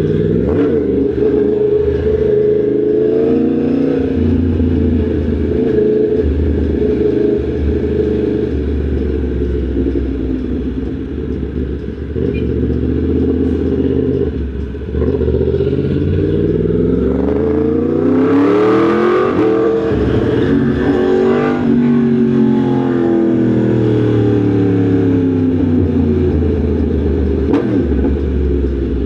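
Yamaha MT-10 SP's crossplane inline-four engine under way on the road, its pitch rising and falling with the throttle. About halfway through it pulls hard, climbing to a loud peak a few seconds later, then eases off and the pitch falls.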